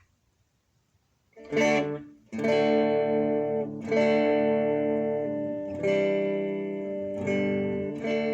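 Electric guitar strummed through an amp with the fuzz pedal bypassed (the dry signal): after a second and a half of quiet, six chords, each left to ring.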